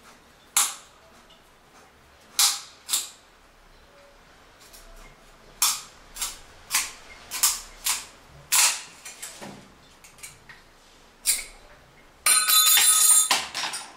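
A tube cutter being turned around a chrome flush-valve pipe, giving a string of sharp metallic clicks and snaps. Near the end the cut-off ring of pipe drops onto the ceramic toilet lid with a ringing metal clatter for about a second.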